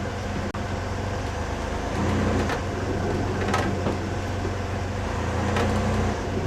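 Ultravan motorhome driving along, its Corvair engine droning steadily and a little louder in the middle, with several short scrapes from the front wheels: a brake drum edge rubbing on its backing plate.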